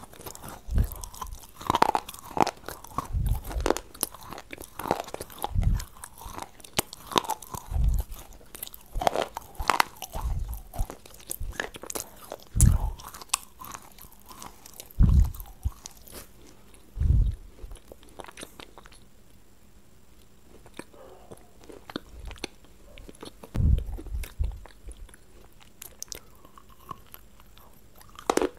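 Close-miked biting, crunching and chewing of hard white lumps. Sharp crunches come irregularly, about one every second or two, quieten for a few seconds a little past the middle, then start again with a fresh bite near the end.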